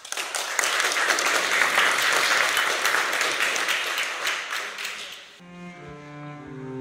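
A small audience applauding. About five seconds in it cuts off sharply and slow music with long held notes begins.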